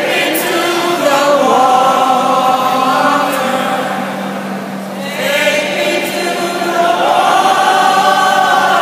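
A group of people singing together with long held notes; the singing eases off about four seconds in and swells again about a second later.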